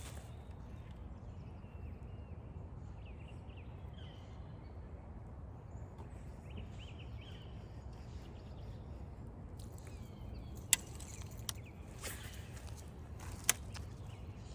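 Faint short bird chirps, repeated several times, over a steady low rumble. Three sharp clicks come in the last few seconds.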